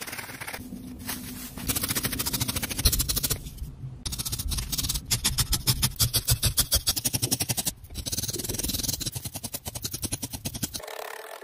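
Felting needles stabbing repeatedly through wool roving into a foam pad: rapid, evenly spaced pokes, with a few brief breaks.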